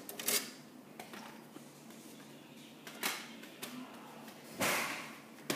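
Handling noises close to the microphone: a few scattered sharp clicks, then a short rustle about four and a half seconds in.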